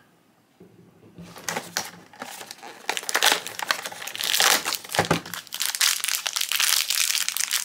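Toy packaging crinkling and crackling as small figures are handled and unwrapped from a Disney Doorables blind box. It starts about a second in and gets louder and busier about three seconds in.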